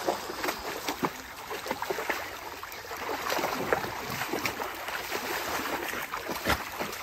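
A dog splashing as it wades in a shallow creek, churning the water with its legs and head, with many irregular splashes over the steady rush of the flowing stream.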